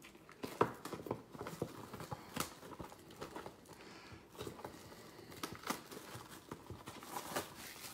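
Foil trading card pack being handled and torn open: the wrapper crinkles and tears, with a run of irregular sharp clicks and rustles from the cards and packaging.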